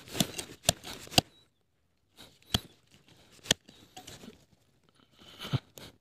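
Irregular bursts of rustling and tearing, broken by several sharp snaps, with short pauses between the bursts.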